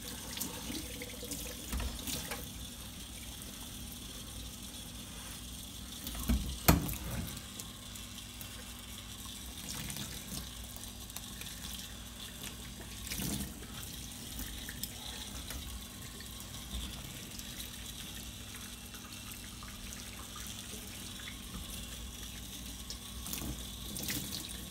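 Water running from a kitchen sink's pull-out sprayer onto a wet dog in a stainless steel sink, a steady hiss. A couple of sharp knocks come about six and a half seconds in, the loudest sound here, and a smaller one later.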